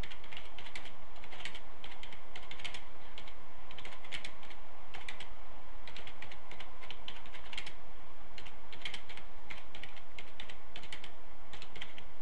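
Typing on a computer keyboard: quick, irregular keystrokes in short runs, over a steady low hum.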